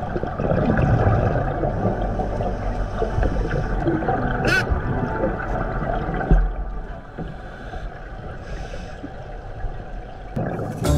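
Underwater scuba sound: a diver's exhaled bubbles rumbling and gurgling past the microphone for about six seconds, then a quieter stretch, with one sharp click about four and a half seconds in.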